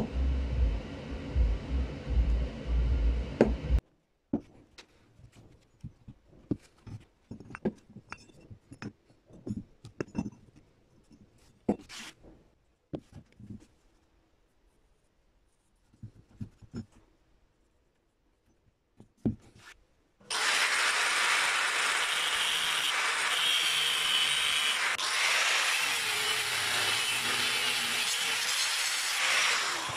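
Scattered light clicks and taps of a metal hatchet head being handled and marked out, then about two-thirds of the way in an angle grinder starts abruptly and cuts into the hatchet head with a loud, steady, shrill grinding, stopping just before the end. It opens with a few seconds of a loud, low noise.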